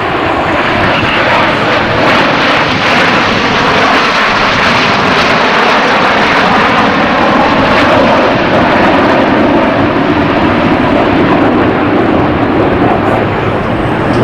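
Canadair CT-114 Tutor jets of the Snowbirds formation flying past, a loud continuous jet roar with slowly shifting pitch.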